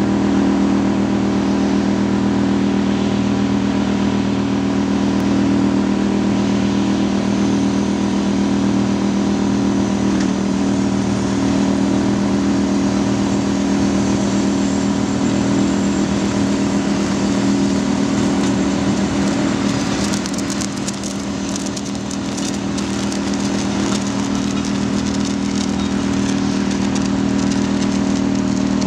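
Small engine of a motorised portable snow blower running steadily at one speed. From about twenty seconds in, a stretch of crackling clicks joins it.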